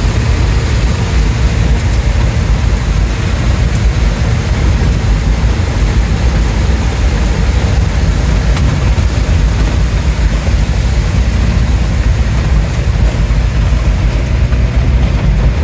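Safari vehicle's engine running steadily with low rumble, heard from inside the cabin as it drives through floodwater, with water spraying against the body and windscreen.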